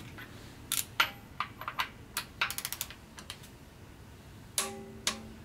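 Torque-wrench ratchet clicking and socket and wrench clinking against the head bolts while the cylinder head of a Ford 172 diesel is being torqued down. There are scattered single clicks and a quick run of about six clicks in the middle. Near the end come two sharper metal clinks that ring briefly.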